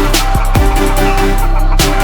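Electronic background music with a steady beat and deep bass hits that slide down in pitch.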